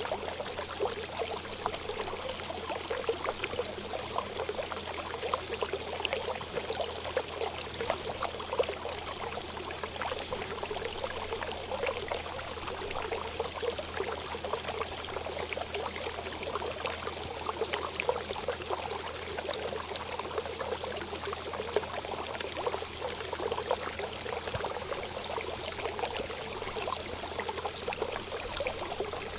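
Water flowing steadily: a continuous trickling stream with many small splashes and drips, unchanging throughout.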